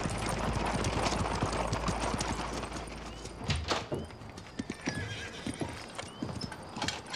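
A horse-drawn wagon pulling up: hooves clopping and the wooden wheels rolling on the ground. About halfway through, the steady rolling noise drops away and leaves separate, irregular hoof steps as the horse comes to a stop.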